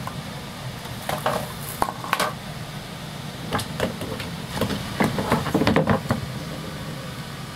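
A Munchkin cat and a silver Bengal cat scuffling in a fight: scattered knocks, thumps and scrabbling of paws and bodies against a wooden stool and wooden floor, busiest and loudest about five to six seconds in.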